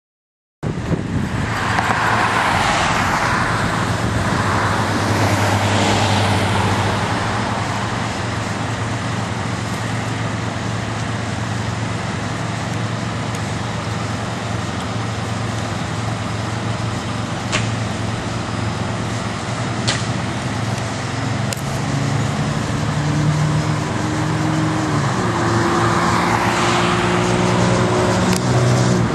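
Fire engine running at idle with a steady low drone. Its engine note steps up in pitch near the end. Passing traffic swells up near the start and again near the end.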